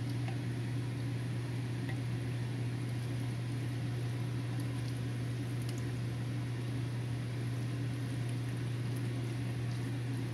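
A kitchen appliance motor running with a steady low hum and an even hiss over it, with a few faint ticks.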